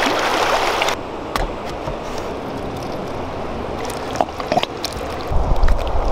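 Water splashing around legs wading through shallow water, loudest in the first second, then settling into a steady rush of water noise with a few soft clicks.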